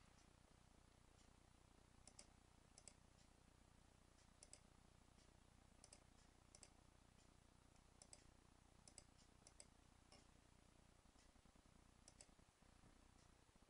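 Faint, irregular clicks of a computer mouse button, about a dozen, many heard as a quick press-and-release pair, over faint steady hiss.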